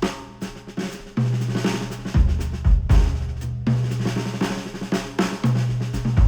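Music with a drum kit and deep held bass notes, played back through Audeze MM-500 planar magnetic headphones and picked up by microphones at the ear cups.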